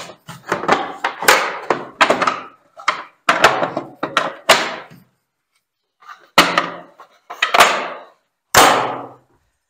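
Hard plastic Milwaukee PACKOUT tool boxes being stacked and locked together: a quick run of sharp plastic clunks and latch clicks, a pause of about a second past the middle, then three more clunks.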